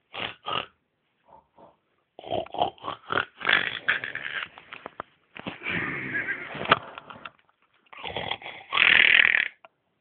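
A sleeping person snoring loudly and unevenly: a few short snorts, then longer rasping snores, the loudest and longest near the end.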